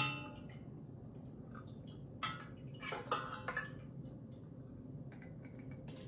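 Small stainless steel cup clinking against a stainless steel pot and strainer: one ringing metallic clink right at the start, then a few lighter taps and scrapes between about two and four seconds in.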